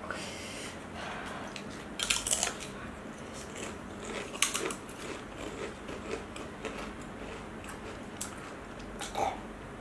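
Black ghost-pepper potato chips being bitten and chewed, crisp crunches in short clusters, loudest about two seconds in and again about four and a half seconds in, with fainter crunches near the end.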